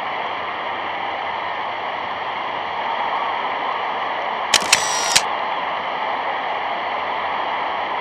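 Steady hiss of noise, with a quick run of three sharp clicks about four and a half seconds in.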